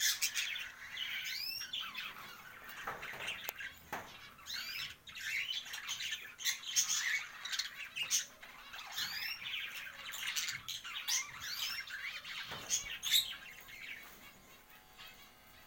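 Kept pet birds chirping and squawking, with many short calls overlapping, some sweeping quickly upward in pitch, along with a few sharp clicks.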